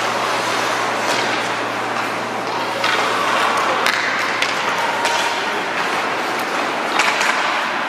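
Ice hockey rink sound during play: a steady wash of arena noise over a low steady hum, broken by a handful of sharp clacks and knocks of the kind that sticks, puck and boards make.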